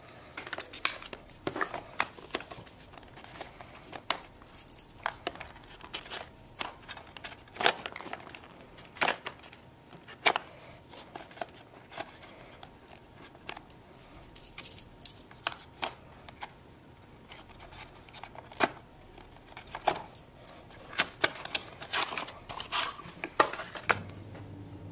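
Hands unpacking a cardboard accessory box and handling a plastic phone case: irregular sharp clicks and taps with rustling of card and plastic. A faint low hum comes in near the end.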